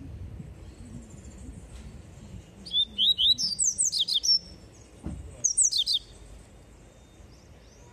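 Caged papa-capim seedeater singing: a fast run of sharp, high whistled notes about three seconds in, lasting under two seconds, then a shorter burst of the same notes a second later.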